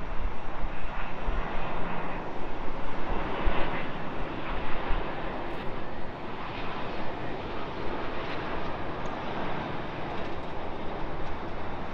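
British Airways Boeing 777 on final approach with its landing gear down, its twin jet engines making a steady rushing jet noise that is loudest for the first few seconds and then eases off.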